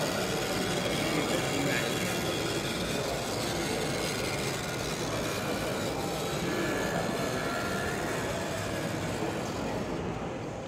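Steady hubbub of a busy exhibition hall, with indistinct voices mixed into the general noise, fading away at the very end.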